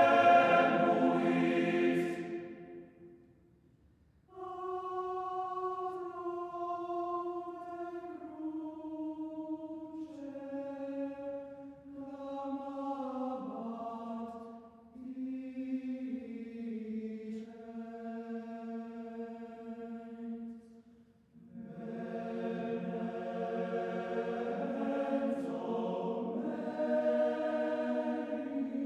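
Background choral music: slow, sustained sung chords in a chant-like style. A loud chord fades away over the first few seconds, then new phrases begin and move slowly from chord to chord, growing fuller in the second half.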